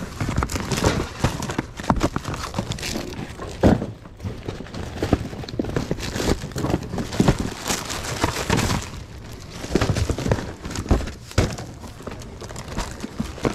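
Hands rummaging through a bin of boxed and bagged goods: cardboard boxes knocking, sliding and thudding against each other, and plastic packaging crinkling, in irregular bursts of handling.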